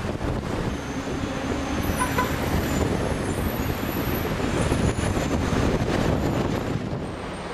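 Road and engine noise inside a moving taxi in city traffic: a steady low rumble of the car and surrounding traffic.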